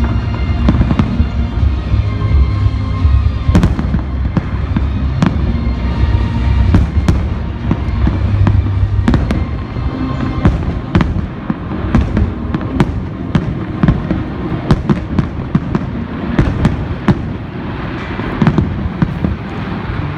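Aerial fireworks bursting in quick succession: many sharp bangs and crackles, coming thicker after about nine seconds. Music plays underneath, its low steady notes dropping away about halfway through.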